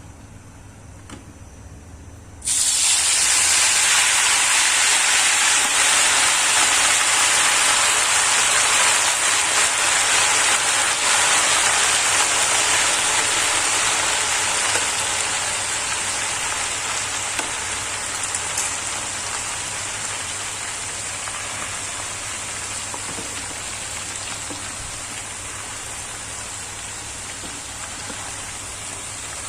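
Food hitting hot oil in a pan and sizzling loudly, starting abruptly a couple of seconds in and slowly dying down.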